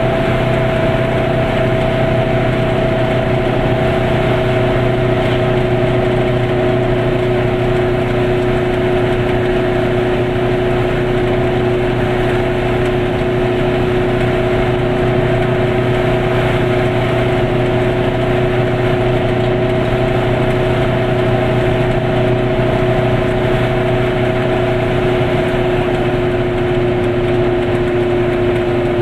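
Goggomobil's two-stroke twin engine running steadily at cruising speed, heard from inside the car. The engine note drifts slightly lower over the stretch.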